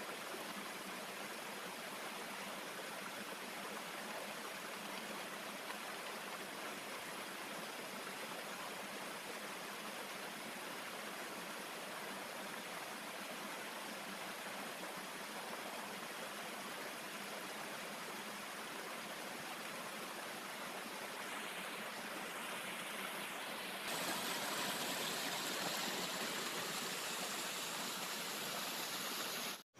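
Fast-flowing mountain stream rushing over rocks, a steady noise of tumbling water that gets louder about three-quarters of the way through.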